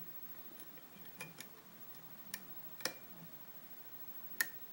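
Sharp, irregular clicks of a lock pick working the pin tumblers of a U-Haul disc padlock, about five in all, the loudest near the end.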